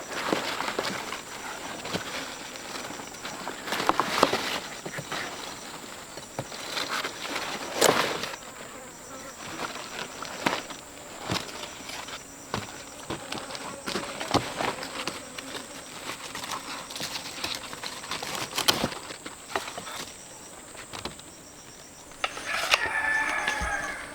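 A steady high insect drone, with scattered rustles, knocks and clicks of handling throughout. A short pitched call sounds near the end.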